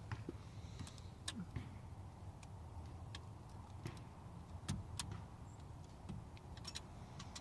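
Scattered light clicks and taps of hands working small parts and wiring at a steering-wheel hub, over a faint low steady hum.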